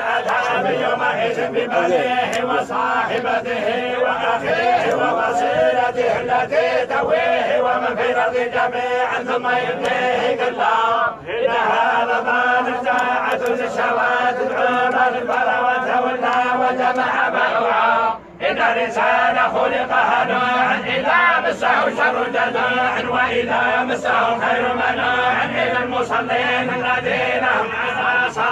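A group of men reciting the Quran together in unison, a continuous chant of many voices with two brief pauses, about eleven and eighteen seconds in.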